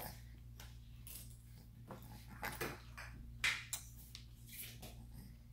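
Scattered light clicks and taps of small objects being handled, the loudest about three and a half seconds in, over a faint steady low hum.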